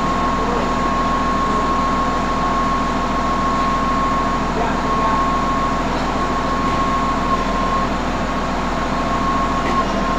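Heavy machinery running steadily: a loud, even drone with a constant high-pitched whine through it.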